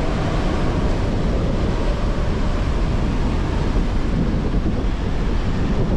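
Wind buffeting the microphone, a steady low rumble over the wash of surf breaking on the beach.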